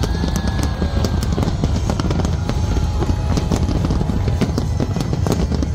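Fireworks display: a steady low rumble of aerial shells bursting, with many sharp crackles and pops layered over it.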